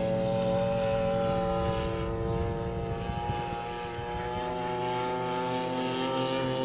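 Single-cylinder two-stroke petrol engine (Zenoah G-62) of a large radio-controlled Corsair model in flight, a steady propeller drone. It fades a little around the middle as the plane moves off, then grows louder again near the end.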